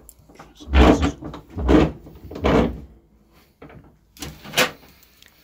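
Hacksaw strokes through the Otto Lock's band clamped in a vice: three strong back-and-forth strokes in quick succession, then two weaker ones near the end.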